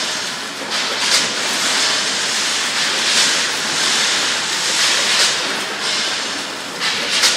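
A 10-head multihead weigher and vertical form-fill-seal bagger packing almonds: a steady hiss and rattle of nuts running through the weigh hoppers and chutes, with a louder rushing surge about every two seconds.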